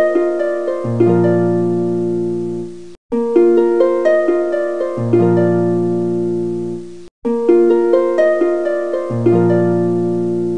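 Background music: a short plucked-string melody looped about every four seconds, each loop cutting off and starting again, with a low bass note joining partway through each loop.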